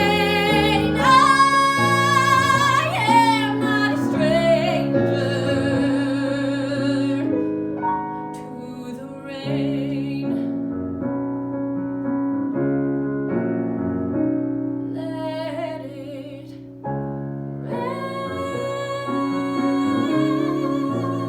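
A woman singing a musical-theatre ballad in a belting style over piano accompaniment, holding long notes with vibrato. It starts loud, softens in the middle and swells again near the end.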